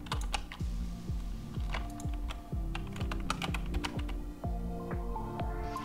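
Computer keyboard keys clicking at an irregular pace, over background music.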